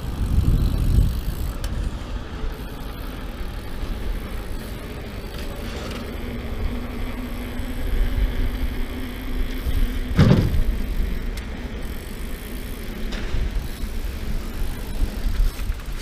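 YT Jeffsy trail mountain bike rolling over paving stones, with a steady low rumble of tyres and wind on the microphone. A low steady hum runs for a few seconds in the middle, and there is one sharp knock about ten seconds in.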